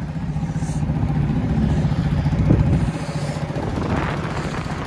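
Motorcycle engine running as the bike rides along, getting a little louder from about a second in and easing off again after about three seconds.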